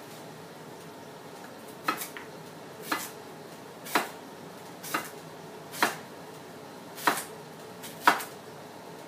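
Knife slicing through a baby marrow and striking a wooden cutting board: single sharp knocks about once a second, seven or eight cuts starting about two seconds in.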